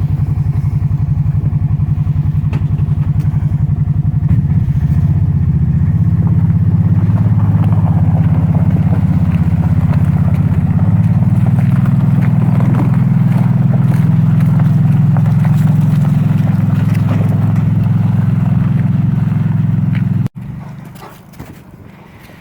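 Small motorbike engine running steadily at low speed, a loud low drone that cuts off abruptly about 20 seconds in.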